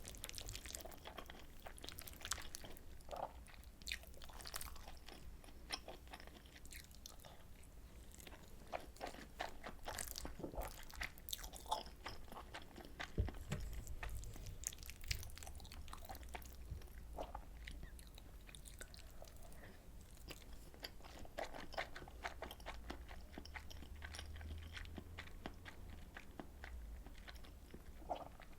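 Close-miked chewing of soy sauce butter egg rice, with many scattered sharp mouth clicks.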